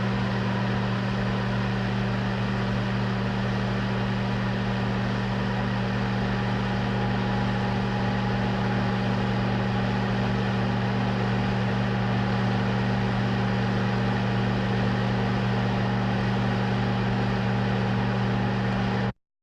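Film projector running with a steady motor-and-fan hum and a faint higher whine over a hiss; it cuts off abruptly near the end.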